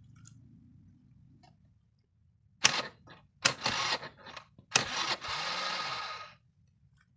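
Honda scooter being kick-started: three kicks, each a sudden clatter as the kick-starter turns the engine over, the last spinning it for about a second and a half. The engine does not catch, which the mechanic puts down to a weak spark.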